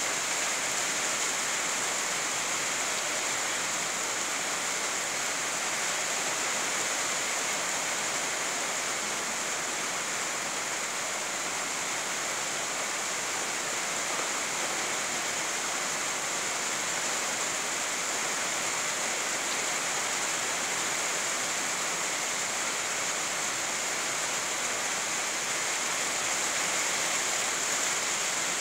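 Steady rainfall, an even hiss with no single drops or other sounds standing out.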